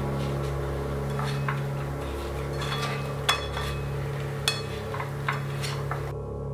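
Cooking utensils knocking and clacking against a nonstick frying pan as glazed, fried sweet potato chunks are tossed: a scattering of sharp clicks, the loudest about three seconds in. The clicks stop about six seconds in.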